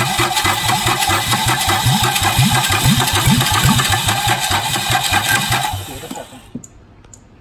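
A Yanmar 3JH3E three-cylinder marine diesel cranking on its starter with starting fluid sprayed into the intake, chugging in a fast even rhythm as it begins to fire and run. It stops suddenly about six seconds in.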